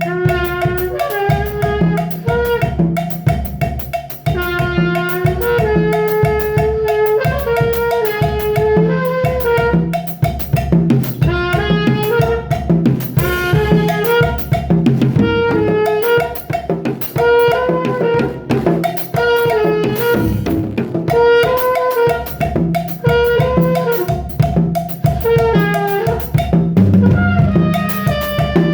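Music: a drum kit keeping a steady beat under a saxophone-like melody.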